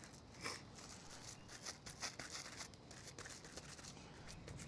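Faint, irregular crinkling of plastic cling wrap, with soft handling noises, as a gloved hand presses ground meat into a wrap-lined pan.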